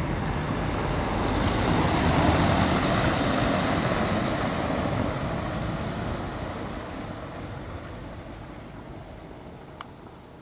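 Motor vehicle passing on a street: an even rushing noise that swells to its loudest two to three seconds in, then fades slowly away.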